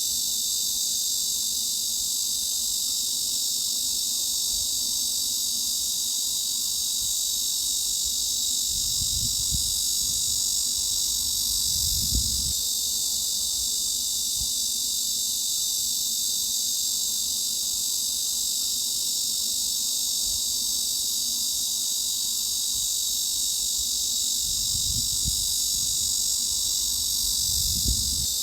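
A chorus of cicadas buzzing in a steady, high-pitched drone that neither pauses nor changes.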